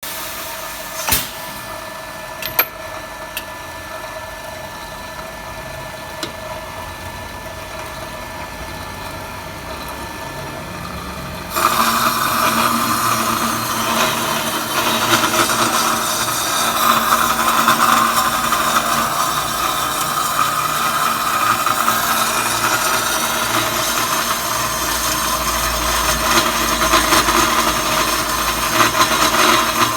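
Automatic pipe-cutting machine running with a steady mechanical hum and a couple of sharp clicks near the start. About a third of the way in it suddenly becomes louder and harsher, and it keeps running that way.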